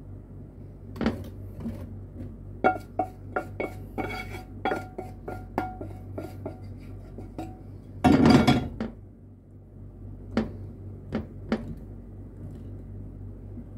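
A wooden spatula scraping and knocking against a frying pan as caramelized sugar and butter is scraped out. It makes a string of quick taps and clicks, a louder rattling scrape about eight seconds in, then a few last single taps.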